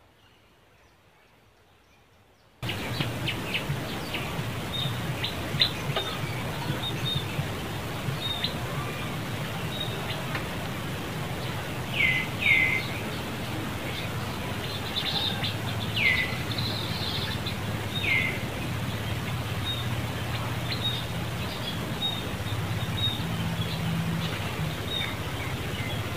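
Outdoor forest ambience that cuts in abruptly after a near-silent start: a steady hiss with many quick high chirps and a handful of short, high calls that slide downward in pitch.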